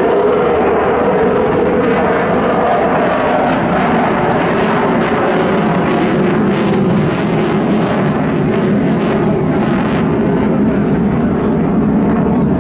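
Steady jet noise from an RAF Typhoon FGR4's twin Eurojet EJ200 turbofans during a display, heard from far off.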